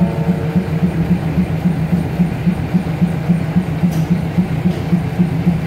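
Diesel railcar engine idling with a steady low throb, about four beats a second. The last note of a descending station chime dies away in the first second.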